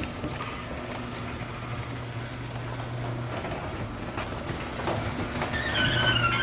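Garage door opener running, the door rolling and rattling along its tracks with a steady low hum. A squeal sets in near the end.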